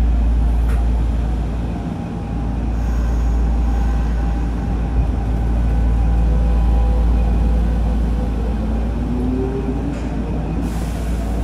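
Nagoya Municipal Subway 5050-series train heard from inside the car as it pulls away and speeds up. The Mitsubishi GTO-thyristor VVVF inverter gives thin steady tones and then a rising tone about eight seconds in, over the low rumble of the moving car.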